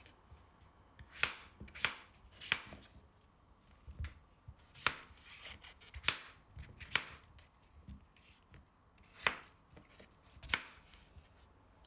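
Kitchen knife cutting peeled raw potatoes into chunks on a wooden cutting board, the blade knocking against the board with each cut. About nine sharp knocks, unevenly spaced roughly a second apart.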